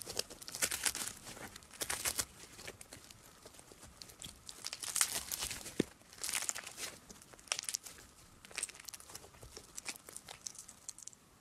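Soft puffy slime squeezed and pulled apart by hand, crackling and tearing in irregular bursts of fine pops.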